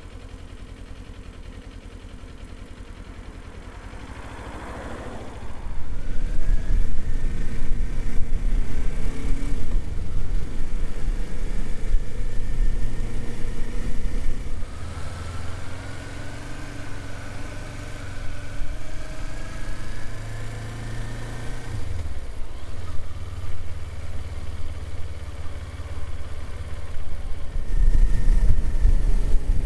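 Kawasaki Z400 motorcycle's parallel-twin engine running under way. It is quieter for the first few seconds, then louder from about six seconds in, with its pitch rising and falling as the throttle opens and closes.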